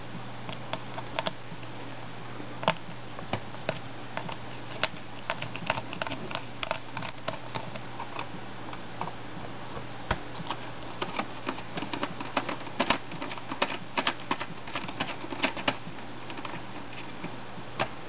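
T10 screwdriver backing out the small screws of a DVR's metal hard-drive bracket: irregular light clicks and ticks of the bit and screws against the sheet metal, busiest in the middle stretch.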